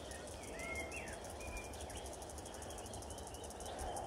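Outdoor bush ambience: a few short bird chirps in the first second and a half over a fast, even, high-pitched insect pulsing and a low rumble.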